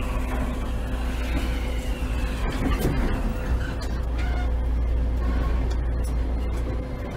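Interior sound of a JR East E653 series 1100 electric train in its motor car, standing at a station and pulling away. A steady low hum of the onboard equipment, with a few sharp clicks and a short gliding tone about three seconds in.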